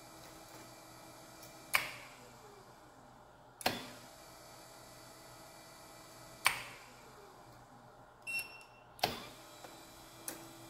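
Magnetic contactors clacking as the DC drive motor is switched on and off by remote control: four sharp clacks a couple of seconds apart. Between them the motor runs with a steady hum. After two of the clacks it winds down with a falling tone. A brief electronic chirp comes just before the last clack.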